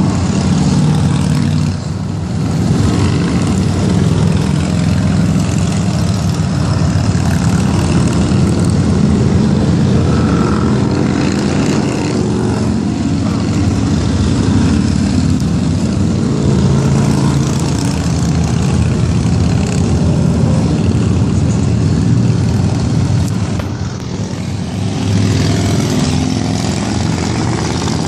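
Cruiser and touring motorcycles riding past one after another, their engines running loud and overlapping, with short lulls between groups about two seconds in and again near the end.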